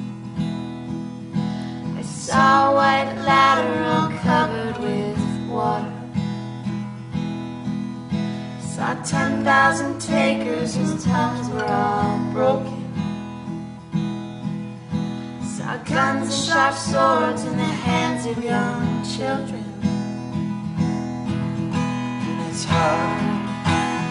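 Acoustic guitar strummed steadily under a woman's singing voice, which comes in phrases of a few seconds with short gaps between them.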